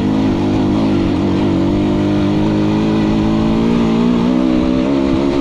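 Aprilia RX 125's single-cylinder four-stroke engine running through its stock exhaust, held at fairly steady revs with small rises and dips in pitch.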